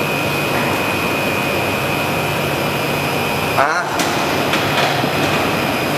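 LV-218 BOPP tape slitting machine, fitted with a sound reducer, running steadily: a continuous dense machine noise with a steady high whine and a low hum. A brief, different sound cuts in a little after halfway.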